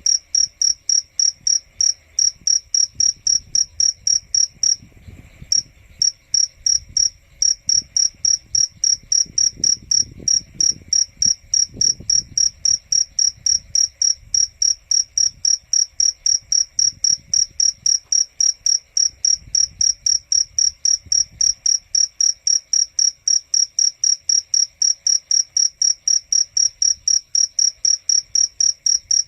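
Cricket chirping: a long, steady run of high-pitched chirps, about three to four a second, with a brief pause about five seconds in.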